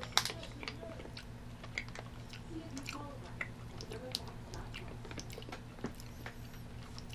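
A person quietly chewing a grape Skittles gummy candy, making scattered small mouth clicks over a steady low hum.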